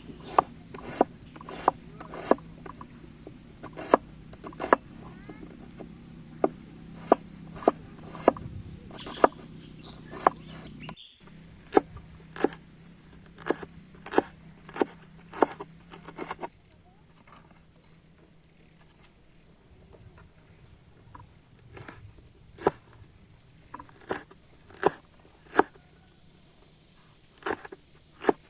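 A long run of sharp taps or knocks at uneven spacing, about one or two a second, over a low steady hum that stops partway through and a faint high steady tone.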